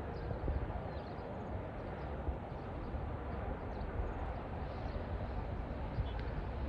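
Outdoor ambience: a steady low rumble and hiss with faint, scattered high chirps.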